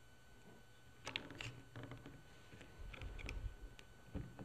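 Several light clicks and handling noise from an AR-15 lower receiver's freshly installed trigger group and safety selector being worked by hand, scattered over a few seconds.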